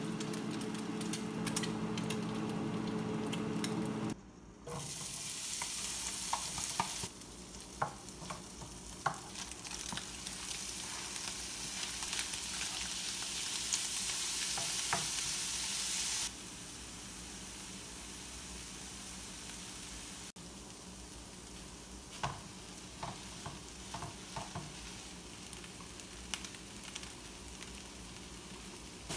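Food sizzling in a frying pan on a gas stove, with a spatula and then a wooden spoon scraping and stirring: kimchi and diced ham stir-frying for kimchi fried rice. A low hum sits under the first few seconds, and the sizzle jumps in level at a few cuts.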